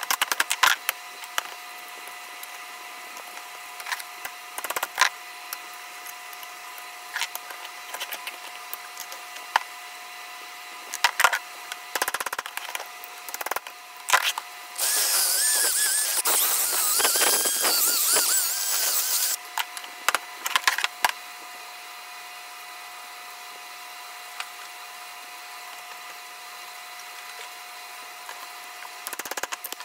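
Scattered clicks, taps and scrapes of hand tools working old handle wood out of a steel axe head's eye, over a steady background hum. From about 15 to 19 s a power drill runs with a loud whirr.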